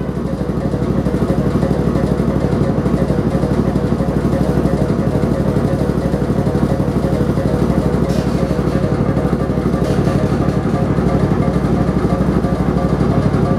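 Custom Yamaha Majesty 250 big scooter's single-cylinder four-stroke engine idling steadily with a lumpy exhaust pulse.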